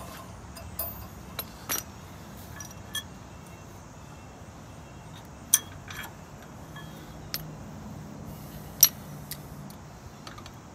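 Scattered sharp metal clicks and clinks as a steel hitch pin and the top link are worked into the top-link bracket of a Mahindra Max26XLT's three-point hitch, about eight in all, the loudest about five and a half and about nine seconds in.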